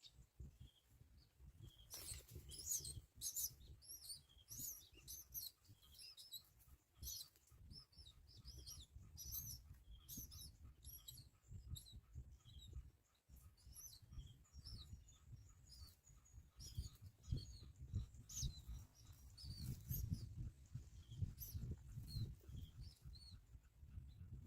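Small birds chirping in rapid, faint, high-pitched calls, with a low rumble underneath.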